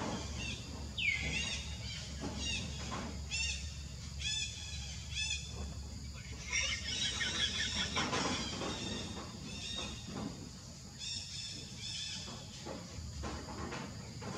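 A run of short, high-pitched animal calls repeating about once a second, with a rising squeal about a second in, over a steady low rumble.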